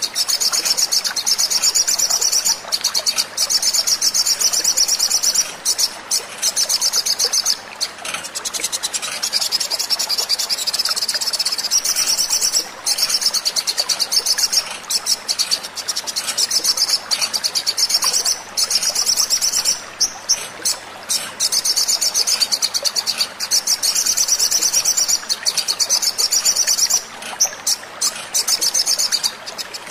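Sunbird song played as a lure recording: long, very rapid, high-pitched twittering trills in phrases of a few seconds, repeated with short breaks.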